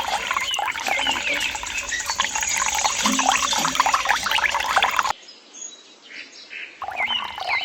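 Water trickling and splashing, full of small drips, with birds chirping over it. About five seconds in the sound cuts to a quieter stretch, then the chirping returns near the end.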